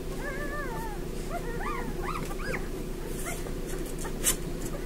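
Five-day-old Bernese mountain dog puppies whimpering and squeaking while they nurse: several short, high, rising-and-falling cries in the first half, fainter ones after. A steady low hum runs underneath, and a sharp click sounds about four seconds in.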